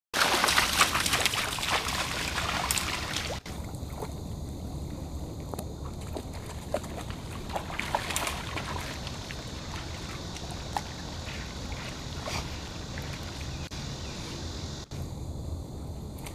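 A large dog splashing hard as it bounds into lake water for the first three seconds or so, then quieter small splashes and water sounds as it swims, over a steady low rumble.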